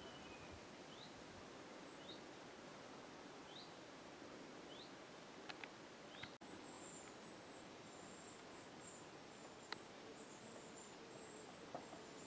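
Faint woodland background with a small bird repeating a short rising chirp about once a second for the first few seconds. From about halfway on there is a very high, thin broken whistle, with a few soft clicks.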